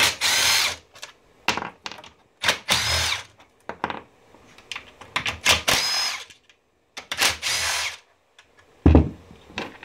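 Cordless brushless drill-driver spinning in four short runs of just under a second each, backing out the four corner bolts. Light clicks of handling come between the runs, and there is one heavy thump near the end.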